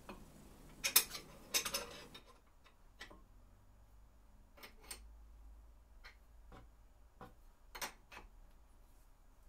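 Steel hand tools clicking against a clamp and machinist square on a milling machine's steel T-slot table as the square is clamped down with a hex key. A cluster of sharp metallic clicks comes about a second in, then scattered light ticks.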